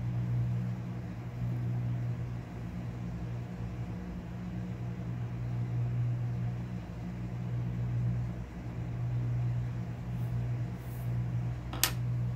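Steady low machine hum, with a single sharp click near the end.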